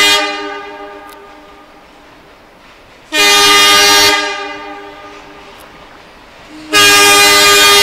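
Train horn blowing in repeated blasts for the grade crossing as the train approaches: a blast cuts off at the very start and fades away slowly, a second blast of about a second comes about three seconds in, and a third starts near the end and holds on.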